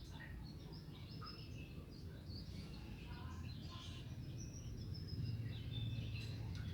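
Canaries in a cage giving faint, scattered short chirps and brief calls over a steady low background rumble.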